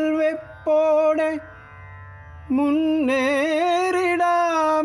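Malayalam theme song: a solo voice sings long, wavering held notes over a steady drone. There is a pause of about a second partway through.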